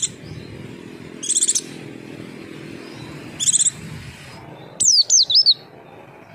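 White-eye (pleci) calling: three short, high trilled chirps about two seconds apart, then a quick run of falling whistled notes near the end. These calls are used to lure other white-eyes into answering.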